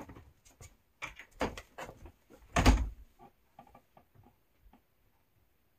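Wooden knocks and clunks from firewood being taken out of a wood box, with one heavy thump a little under three seconds in, then fainter taps that die away.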